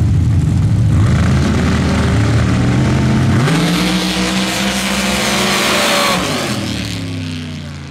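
Two Outlaw Pro Stock dirt drag trucks running loud at the line, then launching about three seconds in, their engine pitch climbing hard as they accelerate down the dirt track. About six seconds in the pitch drops and the engines fade away.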